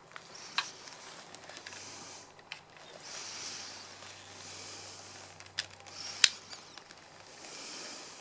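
A wooden crossbow being cocked and handled: scattered clicks and knocks, with one sharp, loud click about six seconds in, and bursts of rustling in between.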